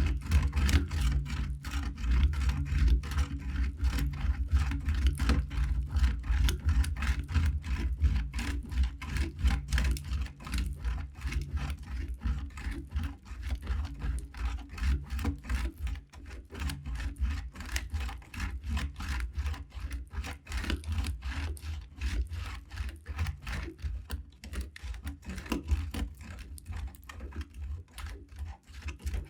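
Knife cutting through dry soap: a dense, continuous run of rapid crackling clicks, over a low steady hum.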